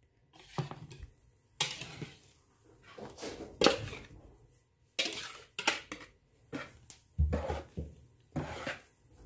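Metal balloon whisk knocking and scraping against the bowls as stiff whipped egg whites are pushed out of one bowl into a plastic mixing bowl: a string of irregular clatters and taps.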